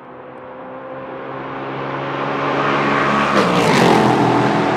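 Ligier JS P320 LMP3 prototype's Nissan VK56 5.6-litre V8 approaching at a steady pitch and growing louder, then passing close by with a sharp drop in pitch about three and a half seconds in.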